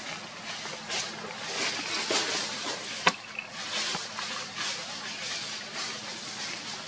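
Outdoor ambience: a fluctuating hiss with a single sharp click about three seconds in.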